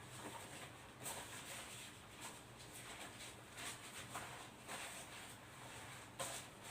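Faint, irregular rustling and light handling noises: a string of short soft rustles and taps, the sharpest a little before the end, over a low steady hum.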